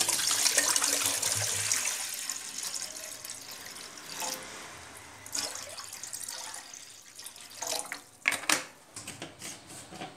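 Water poured from a bottle into a cooking pot, a splashing stream that is loudest for the first couple of seconds and then tapers off, with a few sharp knocks near the end.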